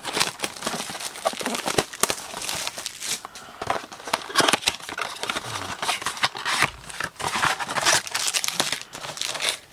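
Plastic wrapping crinkling and tearing in the hands as a blaster box of football trading cards is unwrapped and opened: a dense, uneven run of crackles and rustles.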